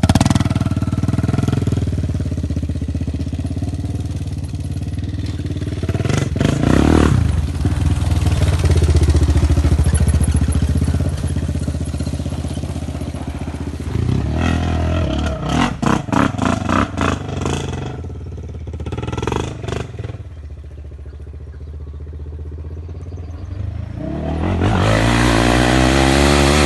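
Quad bike (ATV) engine running, revved up about 7 seconds in, then given a series of quick throttle blips about halfway through. It settles to a lower, steadier run for a few seconds, then revs up loudly again near the end.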